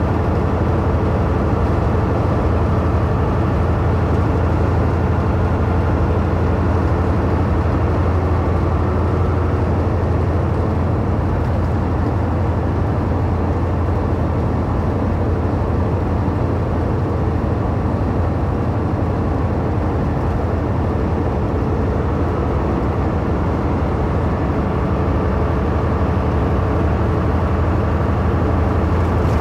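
Steady low drone of a truck's engine and tyres on the road, heard from inside the cab while cruising at highway speed.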